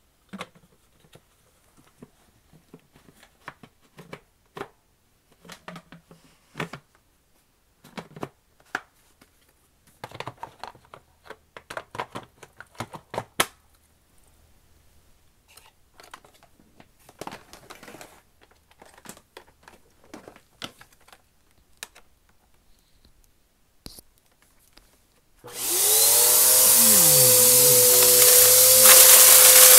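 Scattered clicks, taps and rustles of handling, then near the end the Bissell AeroSwift vacuum cleaner's motor switches on. Its whine rises quickly in pitch as it spins up, then settles into a loud, steady run.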